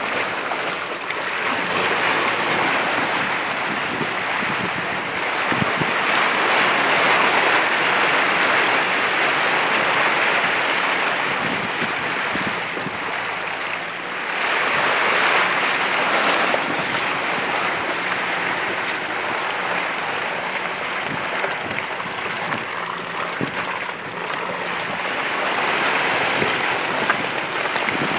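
Nissan Patrol GR Y61 driving along a muddy, puddled track: a steady rushing noise of tyres through wet mud and air at an open side window, swelling and easing a little.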